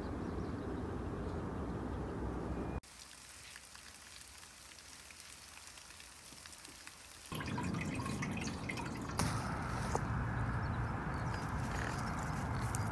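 Water trickling and splashing in a shallow concrete irrigation ditch, mixed with wind on the microphone. The sound drops abruptly quieter about three seconds in and comes back louder about seven seconds in.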